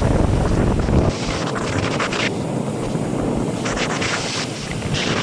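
Strong wind buffeting the microphone over the rushing hiss of big waves; the low rumble of the buffeting drops away about a second in.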